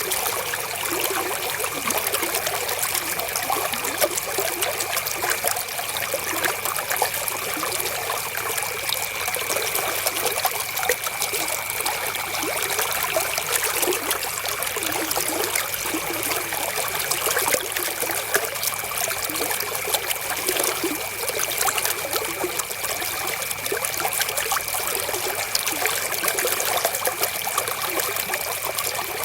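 River water flowing and trickling steadily, a dense splashing with many small droplet sounds. A faint steady high tone sits underneath.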